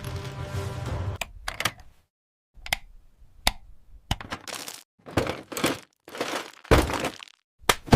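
Background music stops about a second in. It is followed by about a dozen separate sharp clicks and short clattery bursts, unevenly spaced, with brief silences between them.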